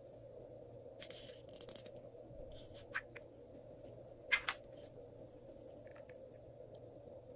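Light clicks and crackles as small add-ins, flower-shaped sequins and a glittery piece, are handled and dropped onto glossy slime in a tray, over a faint steady hum. The sharpest click comes a little past halfway.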